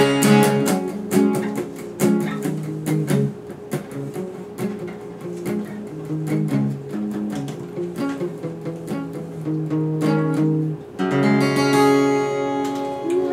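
Acoustic guitar playing the instrumental close of a song: a run of plucked and strummed chords, then one chord left ringing from about eleven seconds in.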